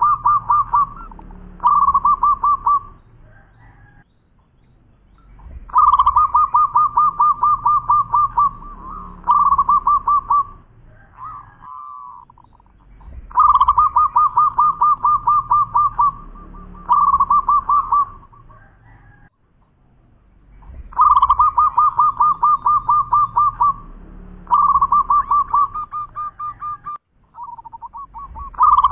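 Zebra dove (perkutut) singing: a phrase of rapid staccato cooing notes, a brief break, then a shorter run, repeated about every seven to eight seconds, four times.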